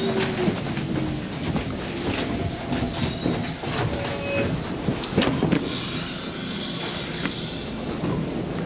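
Stockholm Metro C6 subway car running into a station: wheels squealing and clattering over the rails, with knocks and rattles of the car body. A loud clunk comes about five seconds in, followed by a steady hiss.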